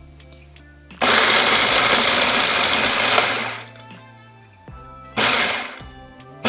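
Food processor pulsed on walnuts, chopping them coarse. It runs once for about two and a half seconds, starting abruptly and winding down, then gives a second short pulse about five seconds in.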